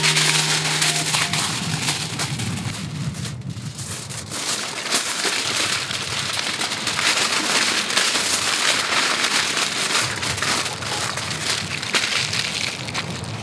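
Aluminium foil being crinkled and crumpled by hand as food is wrapped in it: a dense, steady crackling with a brief lull about three and a half seconds in.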